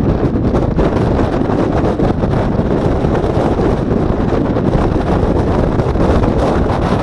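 Airbus A321neo's twin turbofan engines at takeoff thrust as the airliner rolls away down the runway: a loud, steady rumble, with jet blast buffeting the microphone.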